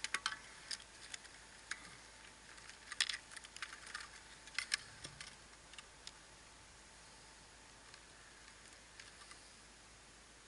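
Quick light clicks and taps of fishing tackle being handled at an angler's seat box, packed close together over the first half, then thinning to a few faint ticks.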